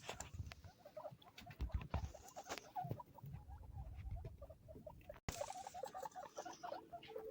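Baby guinea pigs squeaking in many short calls, busier in the second half, over scattered clicks and soft knocks.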